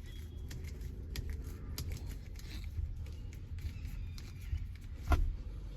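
Scattered small clicks and creaks from an old threaded gear lever knob being twisted anticlockwise off the gear lever by hand with force. A single loud knock comes about five seconds in, over a steady low rumble.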